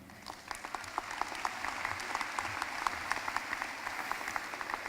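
Audience applauding in a large hall: many hands clapping in a steady patter.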